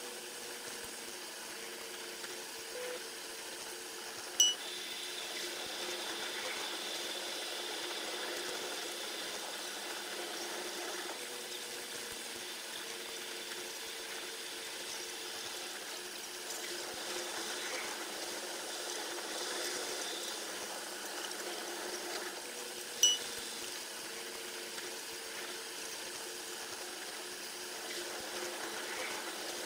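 Running noise of a train heard from the locomotive cab, played back at ten times speed so that it becomes a steady, high, water-like rushing hiss. Two sharp clicks with a short high beep stand out, about four seconds in and again near twenty-three seconds.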